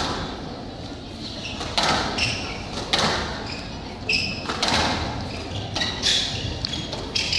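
A squash ball in a rally, sharp hits of rackets on the ball and the ball on the court walls about once a second, echoing in a large hall, with brief high squeaks of court shoes on the wooden floor between the hits.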